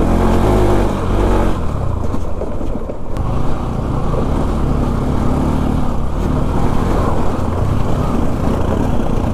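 Bajaj Pulsar NS200 single-cylinder engine running steadily under way as the motorcycle rides a rocky dirt trail, heard from the rider's own bike.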